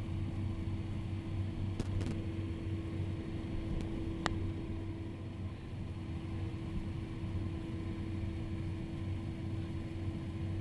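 Steady cockpit noise of a Cessna Citation's twin turbofan engines at idle while the jet taxis, a constant hum with an even tone over it. A few faint clicks sound about two and four seconds in.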